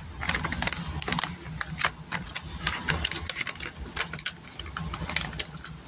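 Plastic packaging of resealable sliced-cheese packs being handled and opened, with a run of irregular crinkles and clicks.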